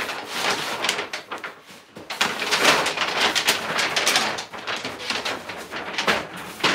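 Crinkling and rustling of a stiff brown paper sleeve as a snowboard is slid out of it and the wrapper is handled, a dense run of crackles.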